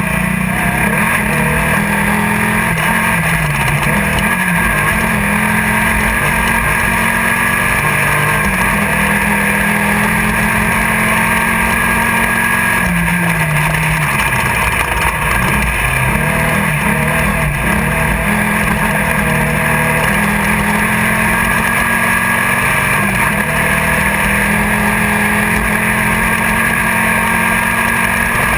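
Class 1600 desert race buggy's air-cooled VW engine running hard, heard from inside the car, its pitch dipping and climbing again a few times with the throttle, over steady noise from the terrain and chassis.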